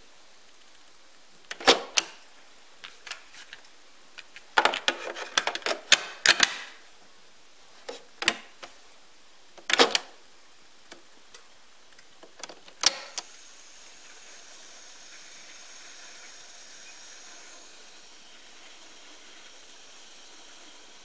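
Mechanical clacks and clicks of a Teac A-170 cassette deck being handled: the cassette door and a tape going in, and its piano-key transport buttons being pressed, with the loudest clacks about two seconds in, a quick cluster around five to six seconds, and more at about ten and thirteen seconds. After the last key press the tape transport runs with a faint steady whir and hiss, the tape counter turning.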